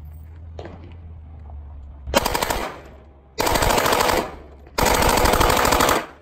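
Three bursts of fully automatic fire from a submachine gun concealed in a briefcase, the last burst the longest.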